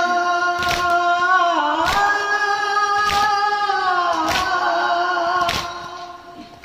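A mourning lament (noha) is sung in long held notes that step and slide in pitch. The procession's chest-beating (matam) strikes in time with it about once every second and a quarter. The singing fades out near the end.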